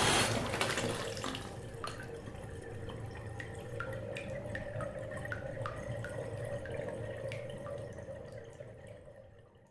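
A bath tap shut off just at the start, its flow dying away, then irregular drips from the faucet plinking into the filled bathtub, several a second, fading out near the end.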